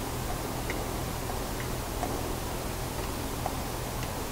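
Steady low hum and hiss with faint, irregular light ticks, roughly one a second, from a plastic oil squeeze bottle and metal valve lifters being handled while the new lifters are oiled on the camshaft.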